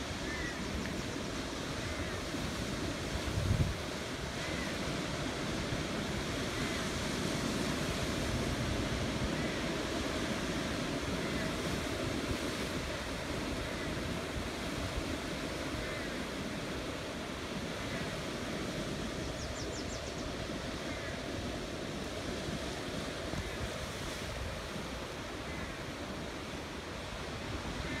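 Heavy ocean surf breaking and churning over a rocky shore: a steady rush of water. A brief low thump about three and a half seconds in.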